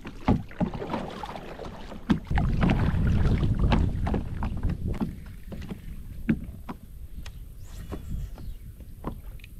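A kayak on the water being paddled and handled: irregular sharp knocks against the hull, with a stretch of low rumble from about two to four and a half seconds in.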